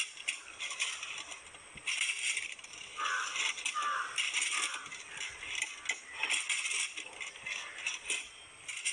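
Metal coconut-tree climbing device rattling and scraping against the trunk in short bursts every second or two as the climber steps it up the palm. Crows caw twice in the background around the middle.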